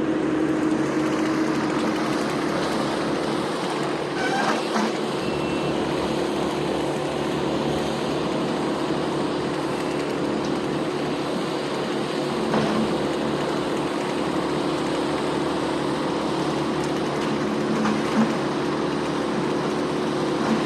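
Heavy tree-removal machinery's engine running steadily, a constant drone with a low hum, with a few faint knocks.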